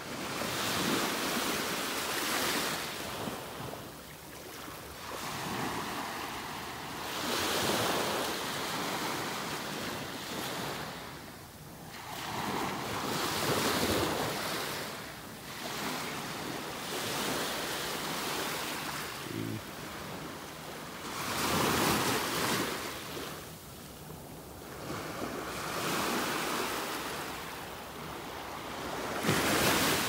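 Small waves breaking and washing onto the shore, the rush of surf rising and falling every few seconds.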